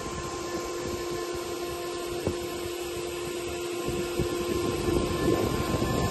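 Steady machine hum from a running industrial CNC wood router, with two held whining tones; the lower one cuts off about five seconds in as the noise grows a little louder.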